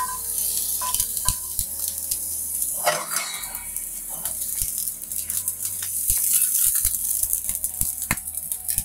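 Garlic cloves sizzling and crackling in hot olive oil in a steel frying pan, with a few sharp knocks as the pan shifts on the burner grate.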